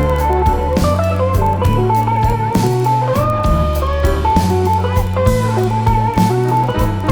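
Instrumental music with a guitar playing the melody over steady bass notes and a drum beat.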